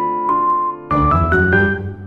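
Gentle background music played on a piano-like keyboard, with a short rising run of notes about a second in.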